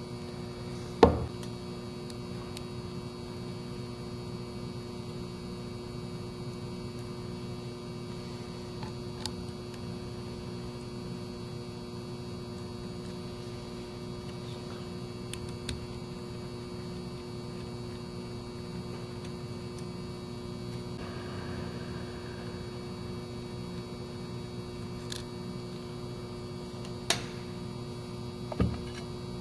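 Steady electrical mains hum with several fixed tones, broken by a few sharp clicks or knocks: a loud one about a second in and two more near the end.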